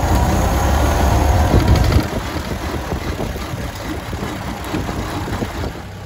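Ford Model A four-cylinder flathead engine running as the bare chassis drives along; the engine is louder for the first two seconds with its pitch falling, then settles to a steadier, softer note.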